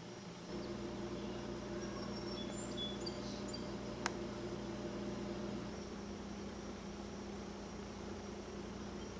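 Quiet room tone: a steady low hum and hiss, with a few faint high chirps and a single sharp click about four seconds in.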